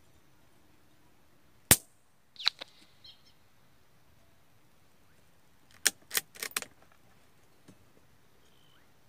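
A single shot from a scoped .22 LR rifle about two seconds in, followed within a second by a couple of smaller sharp sounds. Around six seconds in comes a quick run of five or six metallic clicks, with one faint click after.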